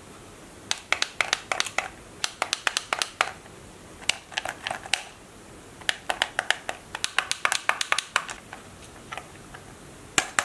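Plastic arrow buttons on a toy steering-wheel RC car transmitter being pressed and clicked, in three quick flurries of sharp clicks with short pauses between, then a few single clicks.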